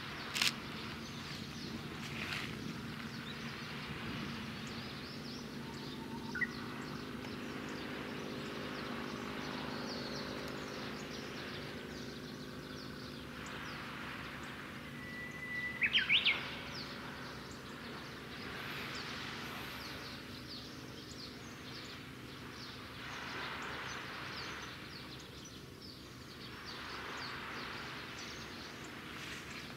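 Low, steady drone of a passing RORO cargo ship's engine carried across the water, under an outdoor hiss. A bird calls a few times over it, the loudest call about halfway through: a held whistle followed by quick rising and falling notes.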